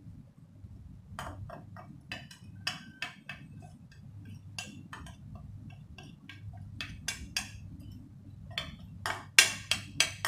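Metal spoon tapping and scraping against a white ceramic dish, an irregular run of sharp clinks as ground spice is knocked off into a mixing bowl, the loudest few near the end.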